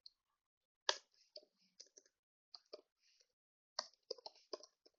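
Faint computer keyboard keystrokes: scattered single key taps, then a quick run of typing near the end.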